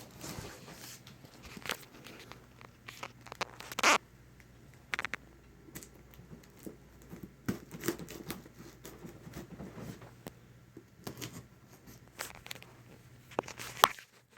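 Cardboard shipping box being torn open by hand: tearing and rustling in short irregular bursts, with scattered sharp clicks and scrapes.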